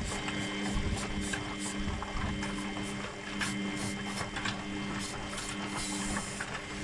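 Washing machine drive motor and belt running with a steady hum and scattered light ticks, the belt freshly treated with belt dressing and no longer crunching.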